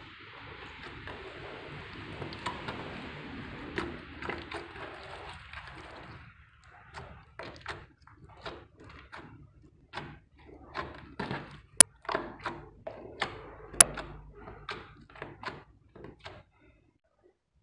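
Clear slime being squished and folded by hand: a soft crackling hiss for the first six seconds, then a run of short wet clicks and pops, two of them sharp and loud a couple of seconds apart. The sound stops shortly before the end.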